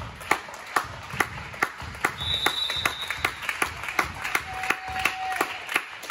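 Spectators clapping in a steady rhythm, a little over two claps a second. A short high referee's whistle sounds about two seconds in.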